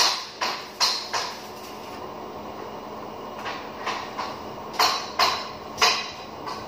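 Sharp knocks on metal, each ringing briefly, in short runs of two or three about a third of a second apart, over a low steady hum.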